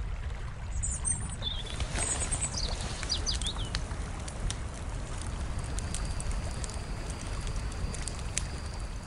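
Birds chirping over a steady low rumble, with the chirps between about one and three and a half seconds in. Scattered light ticks run through it, and a faint high steady tone comes in about halfway through.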